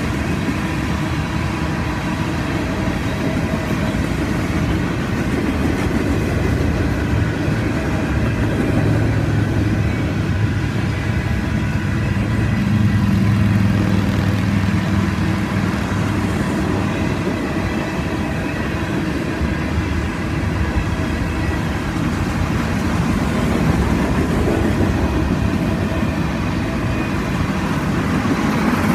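Freight train of tank cars rolling past close by: a steady rumble of steel wheels on the rails.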